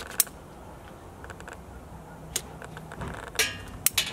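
A handful of sharp, irregular clicks from a long-reach grill lighter's igniter as paper under a charcoal chimney starter is lit, with a short scuffing noise about three and a half seconds in.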